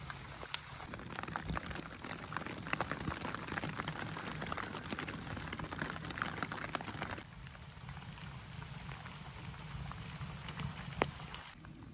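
Fish sizzling over a wood fire, a steady crackly hiss with sharp pops. The sizzle drops away suddenly about seven seconds in, leaving softer crackling.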